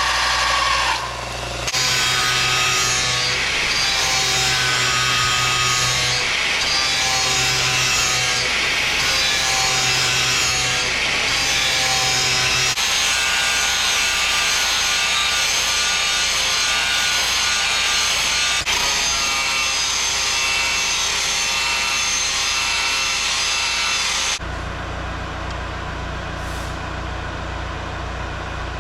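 Power grinder grinding a hardened-steel knife blade, steel rubbing against the abrasive to form the tip and the edge bevels. The sound shifts abruptly a few times. About 24 s in, the rough grinding hiss stops and only a lower, steady motor hum is left.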